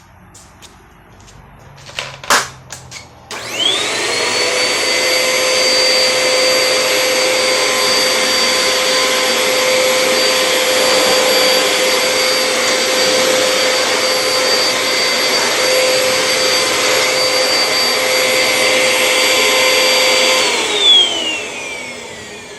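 A Bissell model 1643 bagless pet-hair vacuum cleaner switched on after a few knocks of handling, its motor whine rising quickly and then running steadily with a strong suction hiss. Near the end it is switched off with a knock and the whine falls away as the motor winds down.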